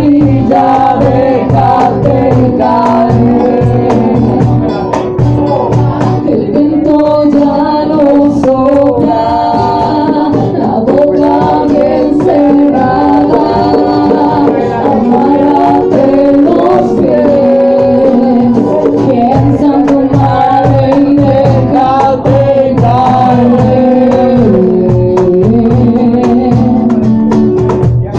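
Live band playing: singing over strummed acoustic guitars, with drums and cymbals keeping a steady beat.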